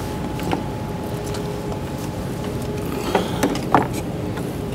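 Steady workshop hum, with a few small clicks and knocks from hands handling plastic parts and a wiring connector under a car's bonnet: one about half a second in and three close together a little past three seconds.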